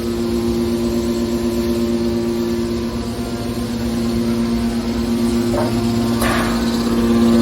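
Hydraulic scrap metal baler running with a steady, even hum. Two brief knocks come near the end, the second louder and ringing briefly.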